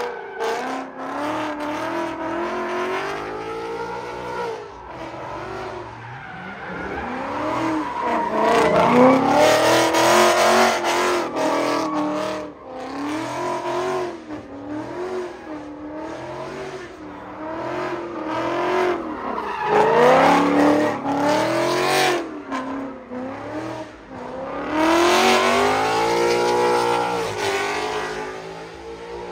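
Ford Mustang GT's 5.0 V8 revving hard during donuts, its pitch rising and falling again and again as the rear tyres spin and squeal on the pavement.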